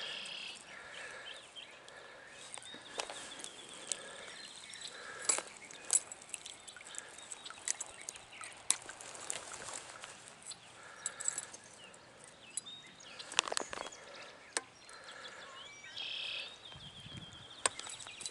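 Scattered splashes and sharp clicks as a hooked brown trout is played and landed in a shallow stream, with faint, short animal calls repeating in the background.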